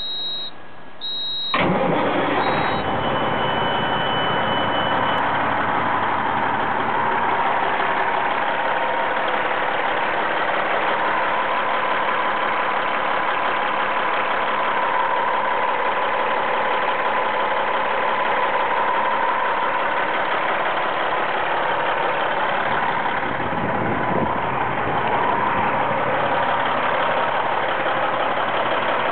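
A few short high warning beeps, then a Caterpillar diesel engine in a 1997 Peterbilt 378 starts about a second and a half in and runs at a steady idle.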